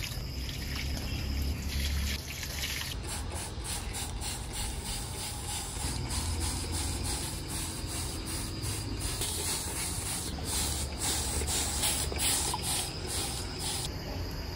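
Water poured from a plastic jug into the soil of a potted plant, then a hand spray bottle misting the plants in many short, quick hissing squirts.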